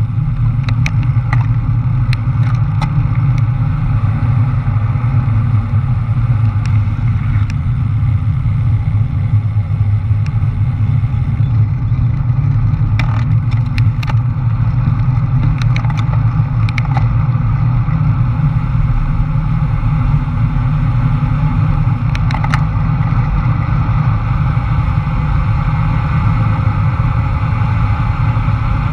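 Wind buffeting the camera microphone at speed on a road-bike descent: a loud, steady low rumble, with scattered thin clicks here and there.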